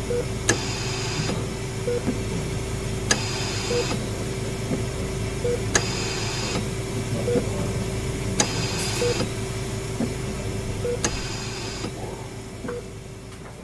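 Hospital room ambience: a low steady machine hum, an electronic monitor beeping about every two seconds, and a machine's sharp click followed by a short hiss about every two and a half seconds. It all fades down near the end.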